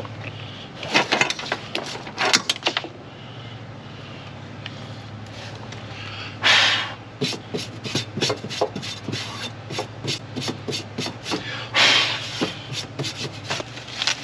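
Hands working at the generator's battery tray and handling packaging: scattered clicks, taps and rubbing, with two short rustles about six and a half and twelve seconds in. A steady low hum runs underneath and stops near the end.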